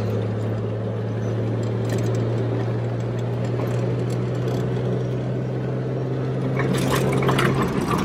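A vehicle driving on a gravel road, heard from inside the cabin: a steady low drone of engine and running gear over the hiss and crunch of tyres on gravel. Near the end the low hum drops away and a few clicks and rattles come through.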